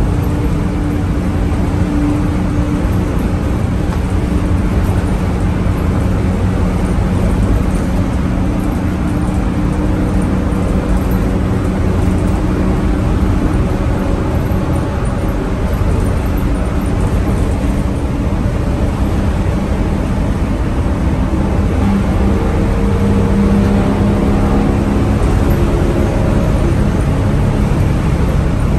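Straight-piped engine of a vintage school bus pulling steadily at freeway cruising speed, a constant drone with road and wind noise, heard from the driver's area inside the bus.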